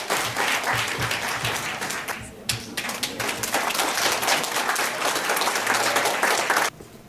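Audience applauding, a dense stretch of many hands clapping that thins briefly about two and a half seconds in, swells again, and stops abruptly near the end.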